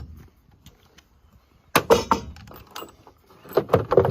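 Loose metal hardware clattering and clinking in two short bursts, about two seconds apart.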